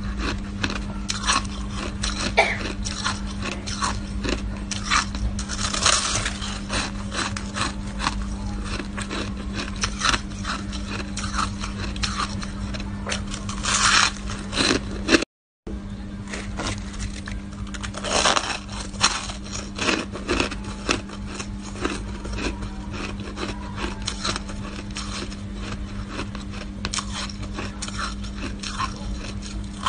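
Soft shaved ice being bitten and crunched, with scraping and squeaking as the packed ice is handled, in a dense, irregular series of crunches. A steady low hum runs underneath, and the sound cuts out briefly about halfway through.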